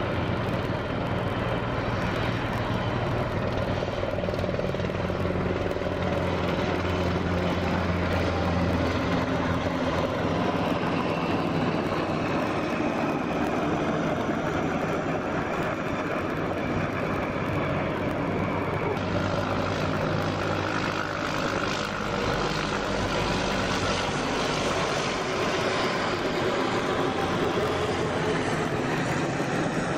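Black Hawk helicopters flying overhead: a steady drone of turbine engines and rotor, with a shift in its pitch and brightness about two-thirds of the way through.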